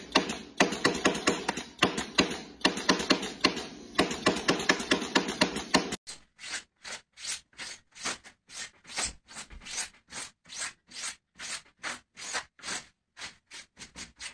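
Rapid, dense scraping and clicking for the first six seconds, then rhythmic rustling strokes about twice a second as white fibre filling is pulled and rubbed by hand out of a shiny puffer jacket.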